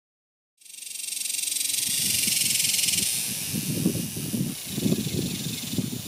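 Cicada buzzing: a dense, high-pitched drone that starts abruptly about half a second in, swells over the next second and then holds steady. An irregular low rumble comes and goes underneath it.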